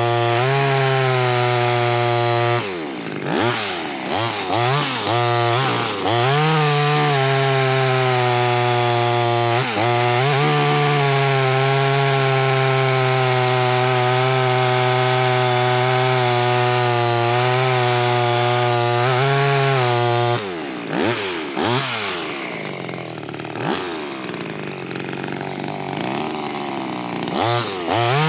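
Small clone two-stroke chainsaw running at full throttle cutting wood. The revs drop and climb back several times about three to six seconds in, and again through the last eight seconds.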